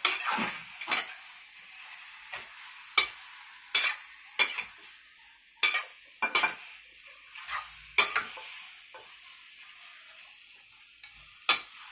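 A metal spoon stirring chicken and potatoes in a stainless steel Saladmaster pan, knocking and scraping against the pan about once a second at irregular intervals. Under the knocks, a steady sizzle from the meat searing in soy and oyster sauce without oil.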